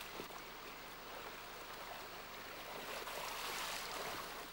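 Splashing of a person wading and thrashing through shallow stream water, over the steady rush of the flowing stream. The splashing grows louder about three seconds in.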